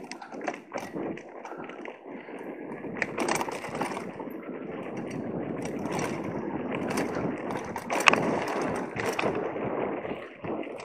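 Mountain bike riding fast over a dry, rough dirt trail: steady tyre noise on loose soil with rattling and knocks from bumps, the loudest knock about eight seconds in.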